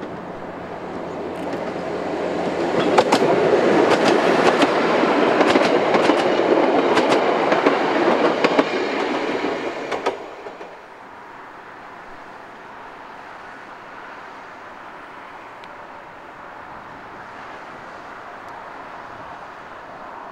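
Narrow-gauge diesel railcar approaching and running past close by, its engine and wheels growing louder, with sharp wheel clicks over the rail joints. The sound drops suddenly about ten seconds in to a quieter steady background noise.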